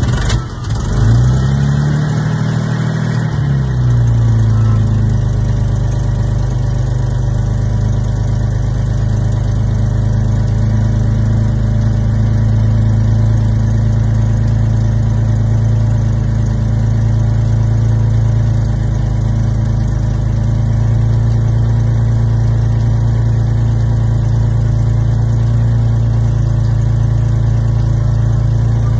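Jaguar XK120's 3.4-litre twin-cam straight-six starting up about a second in, revving up and back down over the next few seconds, then settling into a steady idle.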